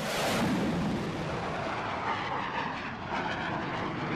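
Jet aircraft engine noise, a broad rushing sound that comes in suddenly at the start, its hiss easing after the first second.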